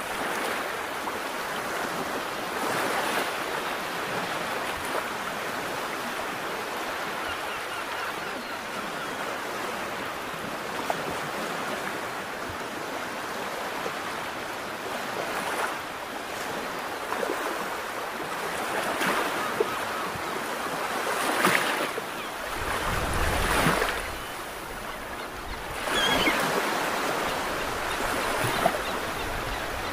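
Sea waves washing and surging, swelling and easing every few seconds. For a second or two about three-quarters through, wind buffets the microphone with a low rumble.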